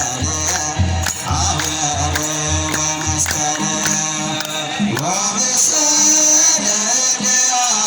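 Ethiopian Orthodox wereb chant: male voices singing together over a low drum beat and metal jingling; the drum drops out about five seconds in.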